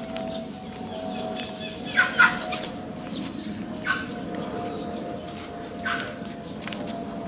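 A steady low drone with a faint wavering hum, taken for a strange aircraft noise in the sky, under short, sharp animal calls about two, four and six seconds in, the loudest a quick pair near two seconds.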